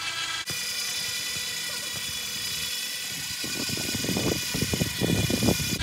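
Battery-powered winch motor whining steadily as it reels in paracord under the load of a climber's weight. An irregular low rumble builds up in the second half.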